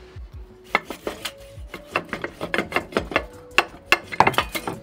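Irregular metallic clicks and clanks of hand tools and parts being worked at an engine's exhaust manifold, a string of sharp knocks that grows busier and louder near the end.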